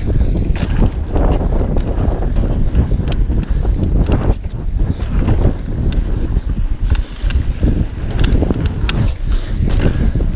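Wind buffeting the microphone on a mountain bike ridden fast downhill, with a constant low rumble and frequent short knocks and rattles from the bike and tyres hitting bumps on rough trail.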